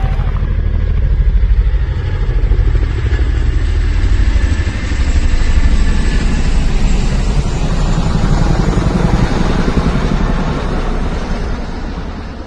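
Motor vehicle engine running loud and close with a fast low throb, fading away near the end.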